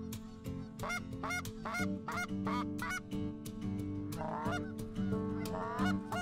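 A flock of Canada geese honking in flight: an irregular string of short calls, several a second at times.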